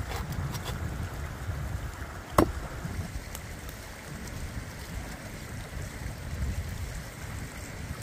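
A rushing stream with wind rumbling on the microphone, under a few faint crisp crackles. One sharp knock sounds about two and a half seconds in.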